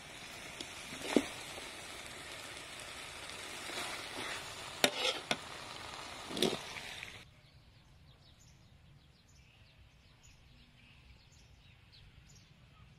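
Chicken and pineapple sizzling as they are stir-fried in a wok, with a few sharp clinks and scrapes of a metal spatula against the pan. The sizzling cuts off suddenly about seven seconds in, leaving a quiet stretch with faint high ticks.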